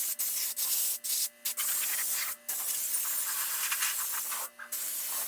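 Compressed-air blow gun hissing in long blasts, broken off briefly several times as the trigger is released, with a steady low hum underneath.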